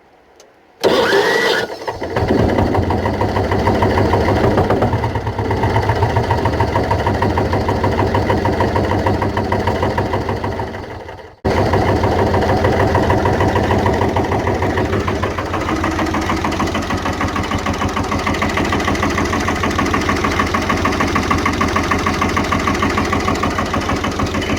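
Engine started with a freshly repaired starter motor: a short crank about a second in, then the engine catches and idles steadily. The sound cuts off around eleven seconds in and the engine is running again at once, idling to the end. The starter, which had been sticking and failing to turn the engine, now starts it readily.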